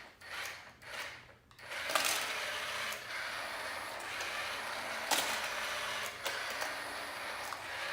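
A small machine running steadily from about two seconds in, with a few sharp clicks or knocks over it.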